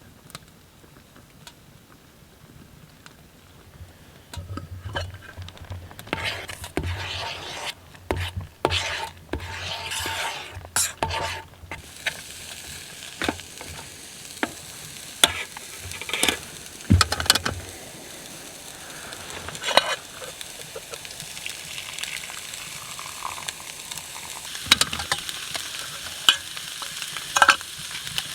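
Food being stirred in a pot, with scraping and clinking of the utensil, giving way about twelve seconds in to a steady sizzle of food cooking on a wood stove, dotted with sharp ticks.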